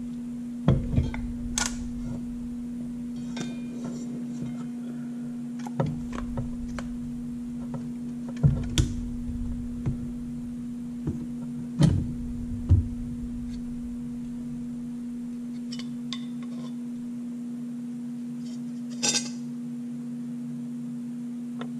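Metal parts of a Mitsubishi Evo X SST (DCT470) dual-clutch transmission's clutch pack knocking and clinking as the drum, hub and steel and friction plates are lifted apart and set down on a workbench: scattered sharp knocks a few seconds apart over a steady low hum.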